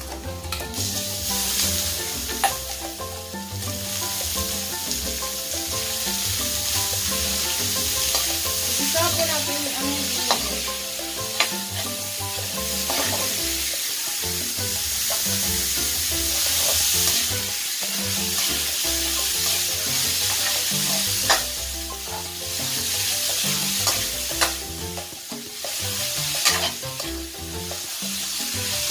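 Ground pork sizzling in a hot metal wok with onion and garlic as it is stirred and broken up with a metal spatula, the spatula clicking sharply against the pan now and then.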